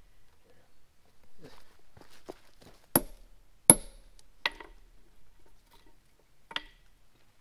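Steel plug-and-feather wedges being worked loose and pulled from drill holes in a granite block. There are two sharp metallic clanks a little under a second apart, then two lighter clinks.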